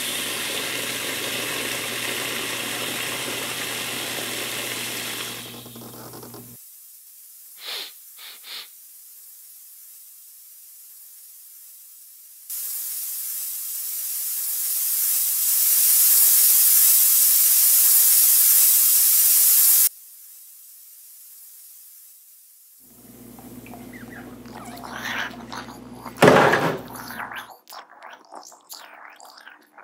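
Water sloshing in a sink of suds over a steady hum for about six seconds, then after a quiet gap a loud high hiss that grows louder and cuts off suddenly: the gas leak hissing. Near the end the hum returns with rustling and one sharp knock.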